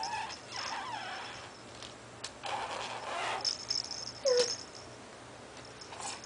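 Baby's breathy huffing: a few short, noisy breaths, and a brief falling squeak of voice about four seconds in.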